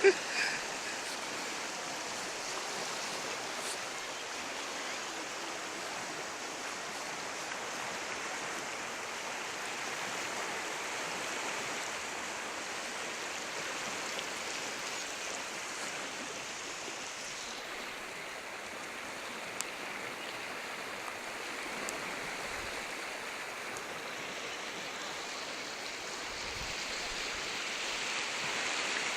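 A river swollen in its first monsoon flood, its floodwater rushing past in a steady, even wash of noise that grows a little louder near the end.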